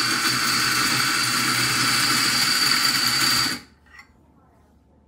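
Eureka Mignon Specialita flat-burr espresso grinder grinding coffee beans into a portafilter on its timer: a steady motor whine with a thin high tone that cuts off sharply about three and a half seconds in when the timed grind ends.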